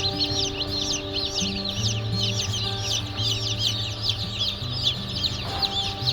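Many chicks peeping continuously in overlapping high, short arched calls, over background music with slow held notes.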